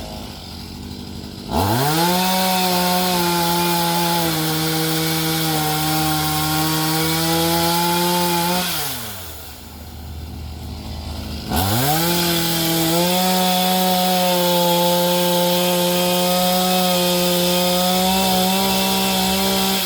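Gas chainsaw throttled up twice from idle, each time held at high revs for about seven or eight seconds while sawing tree limbs, then dropped back to idle; its pitch sags a little under load during the first cut.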